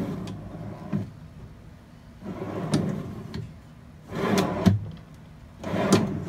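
Plywood drawer box sliding in and out on side-mounted metal drawer guides, about four strokes, each a short rolling rush, several ending in a knock as the drawer hits home. It runs freely with no binding: the clearance of the drawer box is right.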